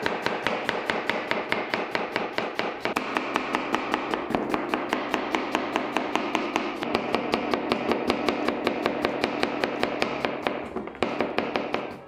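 Chef's knife slicing peeled Granny Smith apples, the blade tapping the cutting board in a fast, even rhythm of several strokes a second.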